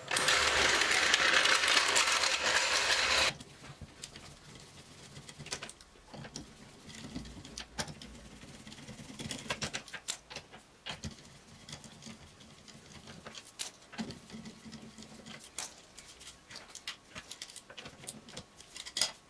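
A steel trolley jack rolled across a concrete floor, a loud rolling rattle that stops abruptly about three seconds in. Then light metallic clicks and clinks as the wheel bolts of a Porsche 911 are undone with a long hand wrench.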